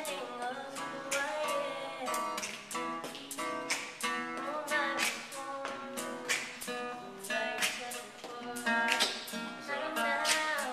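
Acoustic guitar strummed in a steady rhythm of chords, with a voice singing along in places.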